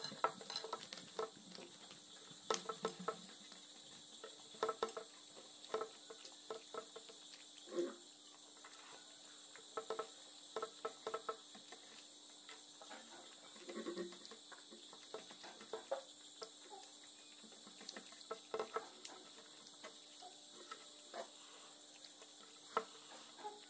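Close-up eating sounds of a meal of rice and curry eaten by hand: wet chewing and lip-smacking clicks in irregular clusters, with fingers mixing rice on a steel plate near the end. Behind them are a steady high chirring of crickets and a faint steady low hum.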